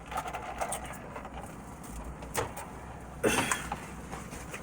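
Close-miked eating sounds: chewing on crispy fried chicken wings, with scattered small crackles and clicks, a sharp click a little past two seconds in and a louder burst about three seconds in, over a steady low rumble.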